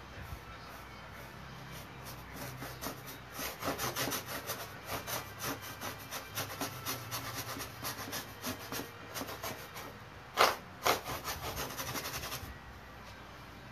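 A brush scrubbing back and forth against a large hard painting board in quick repeated strokes, about two to three a second. Two strokes about ten and a half seconds in are the loudest, and the scrubbing stops a little before the end.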